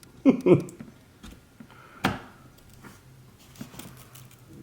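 One sharp click about two seconds in, with a few fainter clicks and taps of PC parts being handled over a low steady hum.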